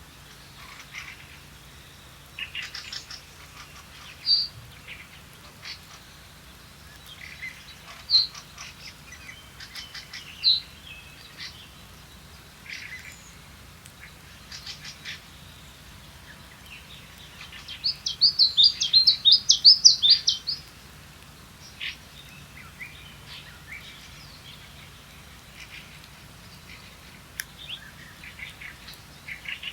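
Small songbirds singing and calling: scattered short chirps and whistled notes, with one loud rapid trilling song lasting about two and a half seconds a little past the middle.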